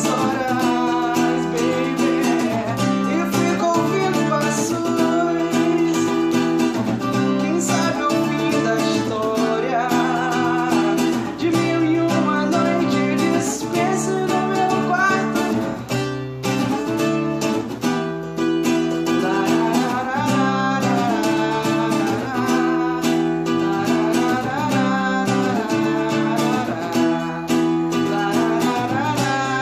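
Acoustic guitar strummed in a steady rhythm, its chords changing every second or so, with a man's voice joining in at times.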